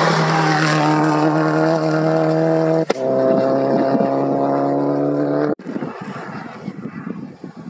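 Rally car engine at high, steady revs on a gravel special stage, with a brief break and a slight drop in pitch just under three seconds in before the engine sound carries on. The engine cuts off abruptly a little past five and a half seconds, leaving a quieter rushing noise with no engine tone.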